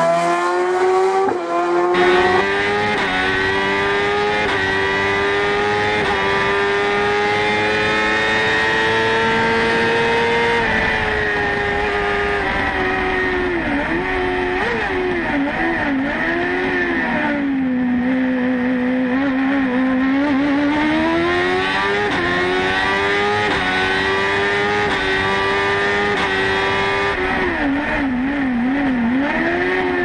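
BMW S1000RR inline-four motorcycle engine in a Fiat 500 hillclimb prototype, running at very high revs. It is first heard from trackside, then from inside the cockpit after about two seconds. The pitch steps up through quick upshifts and holds high, then falls and wavers with short throttle blips as it is downshifted for slow bends in the middle and near the end, climbing again in between.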